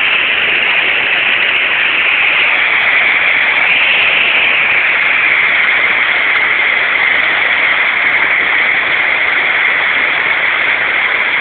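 River water rushing in white-water rapids around and against a Jeep stuck midstream, a loud, steady rush.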